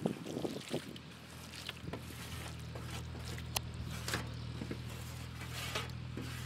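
Chopped raw chicken liver sliding and being scraped by hand off a steel plate into a metal pot: soft wet squelches with scattered light clicks of metal on metal. A steady low hum runs underneath from about a second in.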